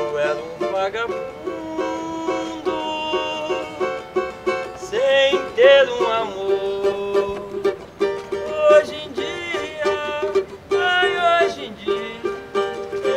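A man singing to his own accompaniment on a small acoustic string instrument, held and played in his lap, with the plucked strings sounding steadily under a wavering sung melody.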